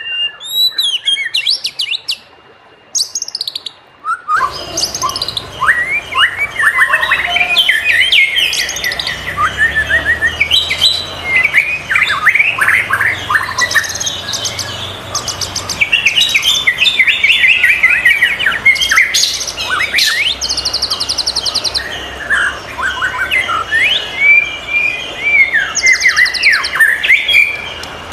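White-rumped shama singing a rich, varied song of gliding whistles, sharp downward sweeps and rapid buzzy trills. The first few seconds are sparse, with a short break, and the song turns loud and continuous about four seconds in.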